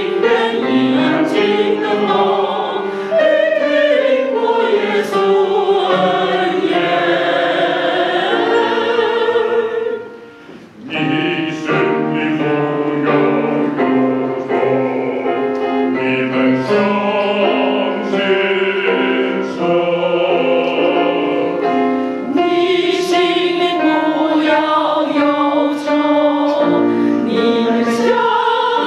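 Mixed choir of men and women singing together, with a short break of about a second roughly a third of the way through before the singing picks up again.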